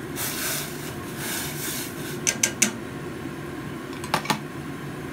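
Diced tomatoes sliding out of a glass bowl into a steel pot of boiling broth: two short scraping, splashing rushes. Then three sharp clinks of the glass bowl against the pot, and two more clicks near the end, over a steady low rumble.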